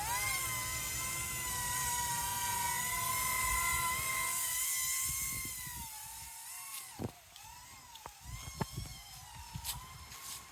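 Small electric rotor motors of a SYMA TF1000 toy quad-rotor helicopter whining steadily in flight, the pitch dipping briefly at the start. After about six seconds the whine grows fainter and wavers, with a few faint clicks.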